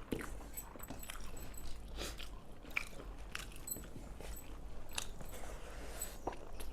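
Close-up eating sounds of people chewing and crunching mouthfuls of rice and pepper chicken, with many irregular small clicks and smacks.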